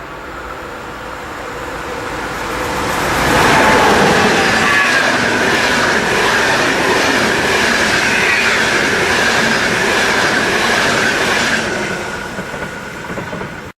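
A train approaching and passing close by, building up over a few seconds, then running loud with clattering wheels and a steady high squeal from the wheels on the rails, before fading and cutting off abruptly at the end.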